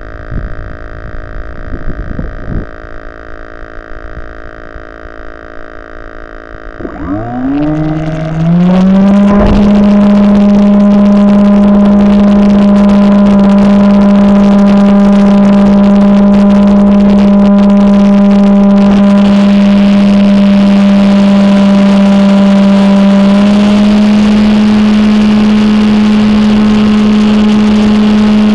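Model aircraft's propeller motor heard from the onboard camera. First a steady electronic-sounding hum, then about seven seconds in the motor spins up with a rising whine and settles into a loud, steady full-throttle drone for the launch and climb. Its pitch steps up slightly near the end.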